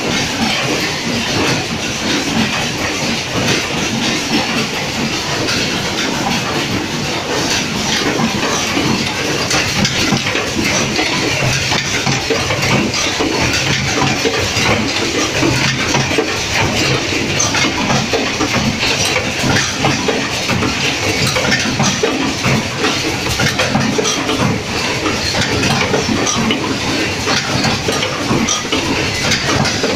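Lens wet-wipe making and packing machines running in a production hall: a loud, steady, dense mechanical clatter of many fast, repeating strokes.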